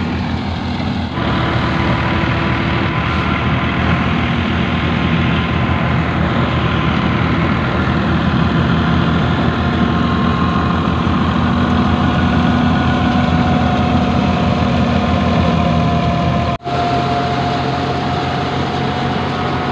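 Tractor-driven threshing machine running steadily under load as dried berseem clover plants are fed into it, a deep engine drone with a steady whine above it.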